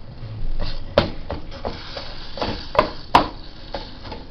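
Wooden spoon knocking and scraping in a frying pan of melting chewing gum: a series of sharp knocks, the loudest about three seconds in.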